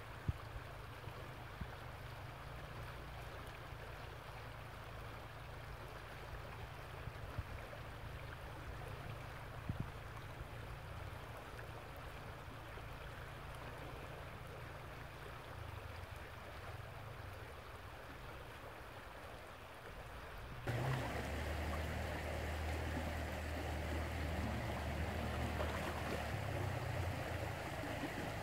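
Shallow creek water running over a gravel riffle: a steady rushing that jumps louder and fuller about three-quarters of the way through.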